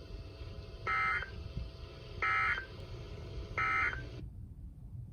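Emergency Alert System end-of-message code: three short bursts of screeching digital data tones, about a second and a half apart, marking the end of the severe thunderstorm warning broadcast. The received broadcast audio cuts off shortly after the third burst.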